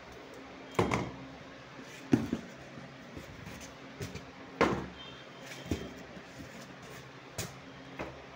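Cardboard shipping box being handled, its flaps moved and pressed, giving a series of irregular knocks and thuds, the loudest about a second, two seconds and four and a half seconds in.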